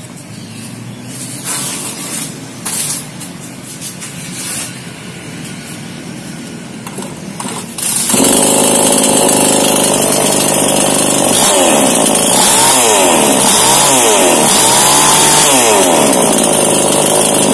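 Small two-stroke chainsaw engine, freshly rebuilt after seizing with a broken piston, being test-started. There are a few short noises of starting attempts, then the engine catches about eight seconds in and runs loudly, revved up and down several times in the second half.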